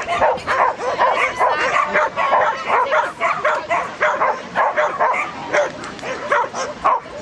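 A dog barking over and over in short, high yaps, about two or three a second, without a break.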